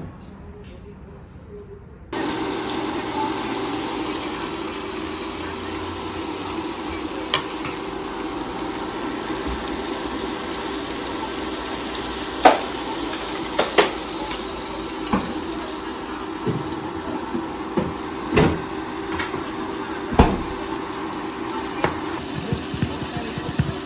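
Steady rush of running water that starts suddenly about two seconds in, with a faint hum under it and a few sharp clinks.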